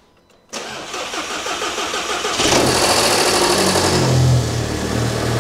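VW Golf 5 GTI's 2.0 turbocharged four-cylinder (AXX) engine being started for the first time after its timing chain tensioner was replaced. The starter cranks for about two seconds, then the engine catches, flares up briefly and settles into a steady idle.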